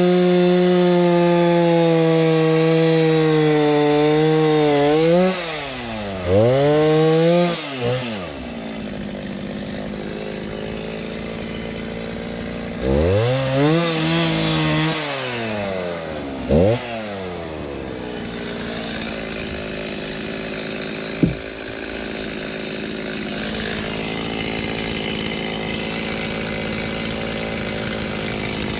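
Two-stroke chainsaw held at full throttle cutting seasoned oak firewood for about five seconds, then dropping to idle with a few quick revs. It is revved again in short blips about 13 to 17 seconds in and otherwise idles, with a single sharp knock about 21 seconds in.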